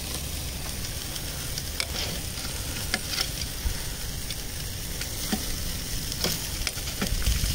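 Lamb chops and burgers sizzling on the hot grate of a Weber charcoal kettle grill, a steady hiss. Now and then the metal tongs click against the grate as pieces are moved.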